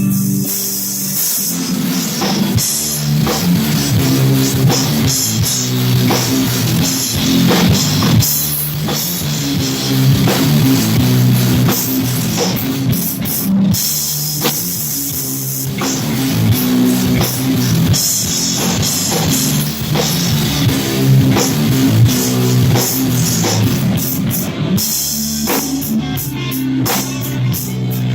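Rock band playing: drum kit with cymbals and electric guitar, loud and continuous.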